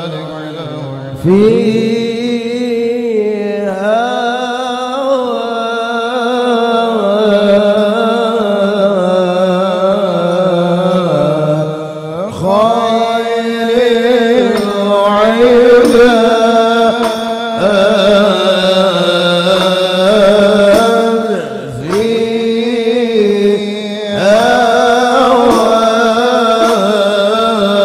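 A man singing an Arabic devotional qasidah into a microphone, in long wavering melismatic phrases with short breaths between them.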